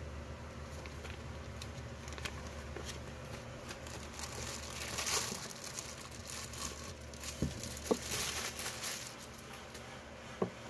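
Clear plastic bag crinkling as an electric drill is slid out of it, in two bouts about halfway through and again later, with a few soft knocks.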